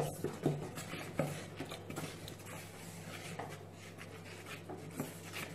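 Metal spoons stirring and scraping a crumbly corn-flour-and-conditioner mix in plastic mixing bowls. A few sharp clinks of spoon against bowl come in the first second or so, then softer scraping and rubbing.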